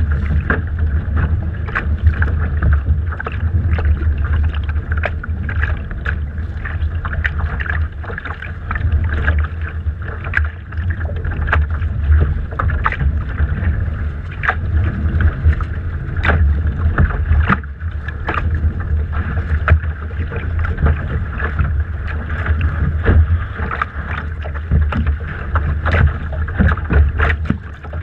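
Water slapping and splashing against the hull of a Laser sailing dinghy as it moves slowly through chop, with frequent irregular splashes over a heavy low rumble of wind on the microphone.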